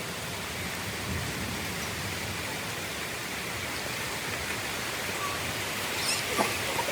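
Steady rainfall, an even hiss of falling rain, with a couple of short sharp sounds about six seconds in.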